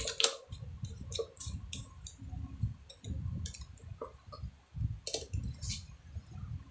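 Irregular small clicks and light knocks of parts and wires being handled, about a dozen in all, over low uneven bumping.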